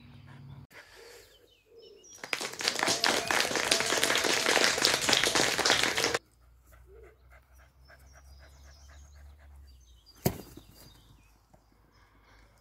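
Dog panting hard and close, a rough breathy noise lasting about four seconds. After it stops, faint outdoor ambience with one sharp click near the end.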